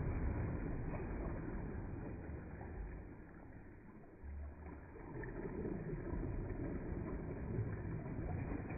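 Water sloshing and churning as waves roll through a wave pool, a low, noisy rush that eases off about three to four seconds in and swells again as the next wave comes through.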